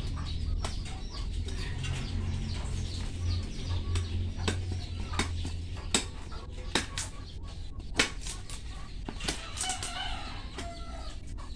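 Rustling and crackling of elephant ear roots and potting soil as hands pull the pups apart from the mother plant's root ball, with scattered sharp snaps, the loudest about eight seconds in.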